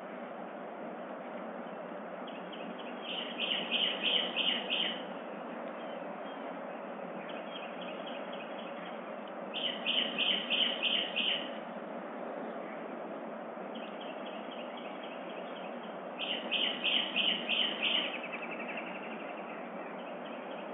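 A songbird singing three phrases several seconds apart, each a run of quickly repeated high notes that starts soft and grows louder, over a steady outdoor hiss.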